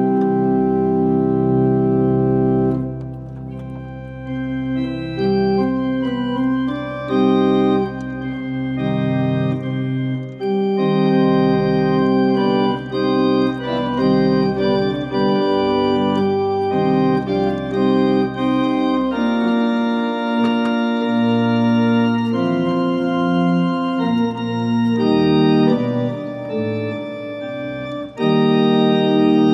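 1830 John Abbey pipe organ, a small five-stop instrument with mechanical action, playing sustained chords that change every second or so. A low bass note under the chords drops out about three seconds in.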